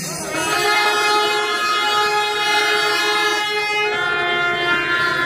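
Festival horns blown in one long, steady blast, several notes held together without a break.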